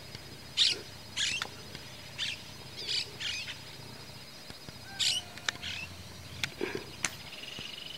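Birds chirping: short, high, squeaky calls about every second, coming irregularly, over a faint steady high whine.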